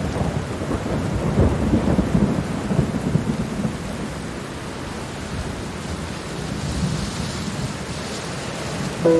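Steady rain, with a rolling rumble of thunder over the first few seconds that then fades into the even hiss of the rain.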